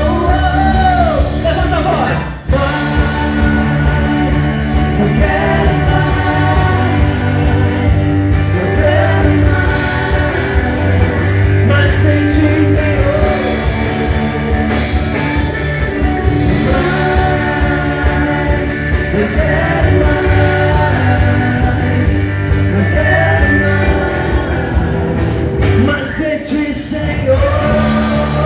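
Live worship band playing a song with a lead singer, over a steady bass line and a regular drum beat.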